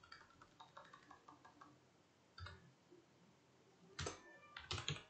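Computer keyboard typing, faint: a run of light keystrokes, then a few louder key presses about four seconds in.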